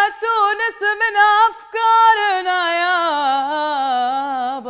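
A woman singing solo, unaccompanied, in Arabic. She sings a few short quick notes, then from about two seconds in a long wavering melisma that slides down in pitch.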